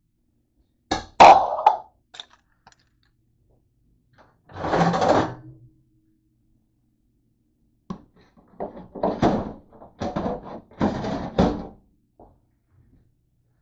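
Irregular knocks and thunks of things being handled: a sharp cluster about a second in, a longer scrape around five seconds, and a run of bumps in the second half.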